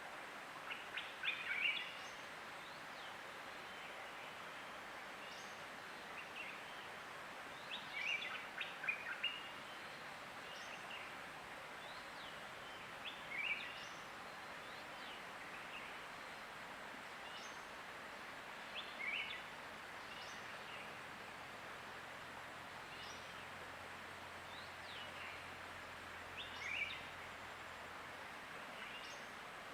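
Birds calling in short bursts of quick, chirpy notes every five or six seconds, with fainter thin high calls in between, over a steady rush of flowing water.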